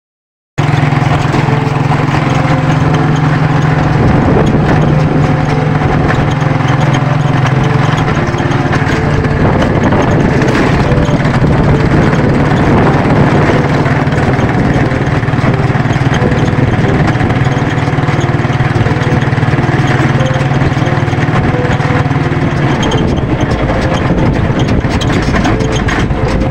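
A motor vehicle's engine running steadily, heard from on board as it drives along, with a strong, even hum. The sound cuts in suddenly about half a second in.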